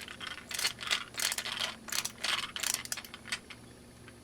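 Kronus ratcheting screwdriver's coarse ratchet clicking through several hand strokes, each a quick run of clicks, stopping about three seconds in.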